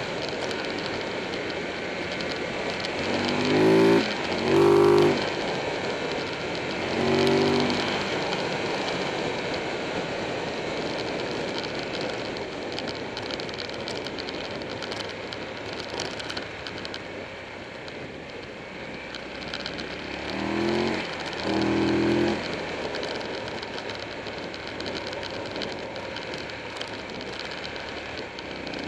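Buell 1125R's V-twin engine under way, with steady wind rush over the on-board microphone; the engine revs up in short rising bursts twice a few seconds in, once more a little later, and twice again about three-quarters of the way through.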